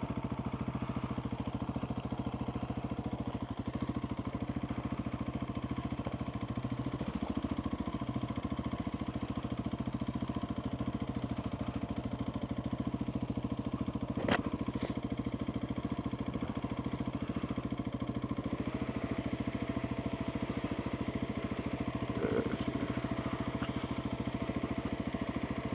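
2021 Husqvarna 701 Supermoto's single-cylinder engine, with a Wings exhaust, running steadily as the bike is ridden slowly along a dirt trail. A single sharp click about fourteen seconds in, and a couple of small knocks near the end.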